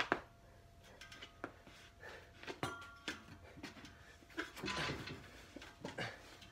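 Scattered light knocks, clicks and rattles from a steel pull-up and dip tower as a person grips it and swings up into an upside-down hold, with a busier stretch of movement noise about halfway through.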